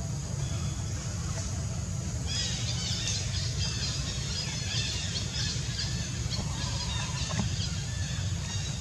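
Animal calls: from about two seconds in, a quick run of short, high-pitched chirping squeals, over a steady low rumble.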